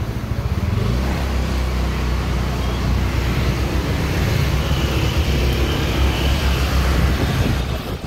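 Engine of a motor vehicle running close by, its low hum rising about a second in and then holding steady, over street traffic noise.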